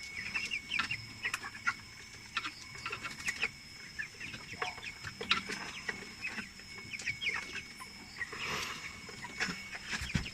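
A flock of 25-day-old broiler chickens making short, scattered peeps and soft clucks throughout, over a faint steady high whine.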